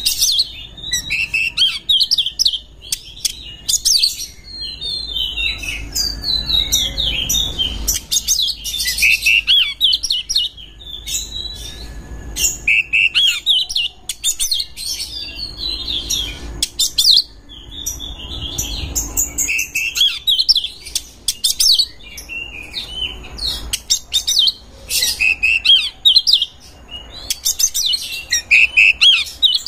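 Oriental magpie-robin (kacer) singing in its breeding-condition song: loud, varied high phrases in bursts of a second or two, with short pauses between.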